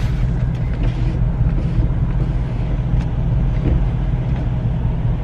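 A car engine idling, a steady low rumble heard from inside the cabin.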